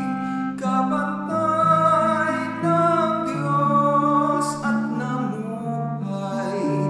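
A Tagalog hymn sung with instrumental accompaniment: held sung notes moving stepwise over a steady accompaniment.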